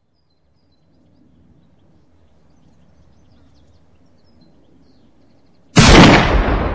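Faint outdoor background ambience with faint high chirps, then near the end a sudden loud explosion sound effect that dies away slowly.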